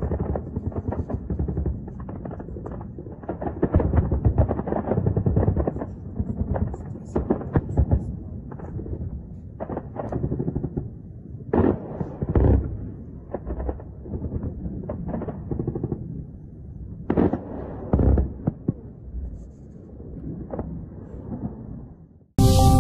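Bursts of rapid automatic gunfire that thin out into separate sharp shots over the second half. It is defensive fire at attacking sea drones.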